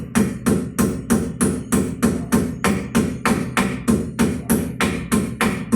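Steady hammer blows on a metal part of a car's rear wheel hub, about three a second, each strike ringing briefly. They stop at the end, with the part driven fully home.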